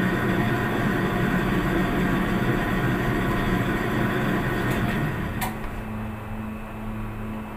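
Commercial bakery dough mixer running with a steady mechanical rumble and hum. About five and a half seconds in there is a click and the running sound drops to a quieter steady hum.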